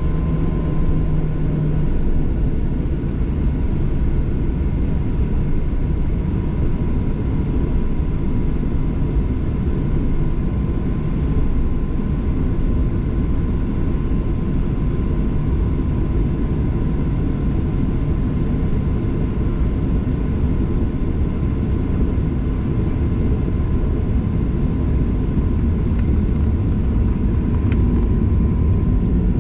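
Steady drone of a Boeing 737-800's CFM56 jet engines and airflow, heard inside the passenger cabin.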